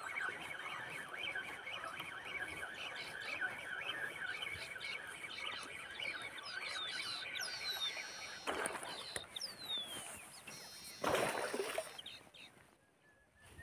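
A dense chorus of birds chirping in rapid repeated notes, with a few short descending whistles. Two brief rushes of noise come about eight and a half and eleven seconds in, and the chorus fades out near the end.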